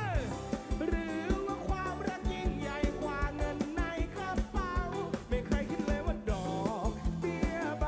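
A live band is playing through a large outdoor concert sound system: a male singer's voice over drums, guitar and bass, with a steady beat.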